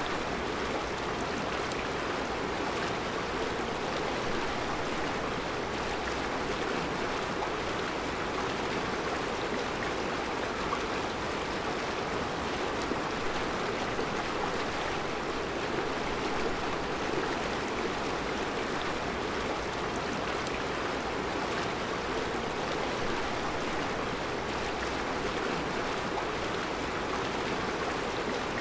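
Mountain river running steadily over a rocky bed of round stones, an even rushing and burbling of water.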